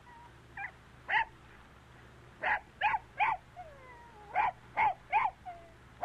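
Puppy yipping: about seven short, high barks in quick groups of two or three, with faint whimpering whines between them.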